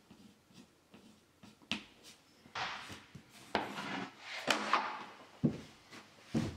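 A thin board template and a hardwood floorboard being handled and lifted off rubber underlay: scraping and rubbing with sharp wooden knocks, then a few heavy footsteps on the floor near the end.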